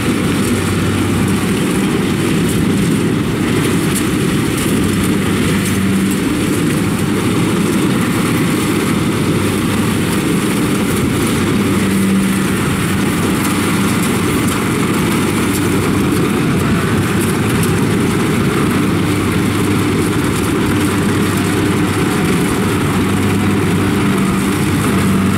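Kubota DC-70 combine harvester running steadily as it cuts rice: a continuous diesel engine drone mixed with the noise of the cutting and threshing machinery under load.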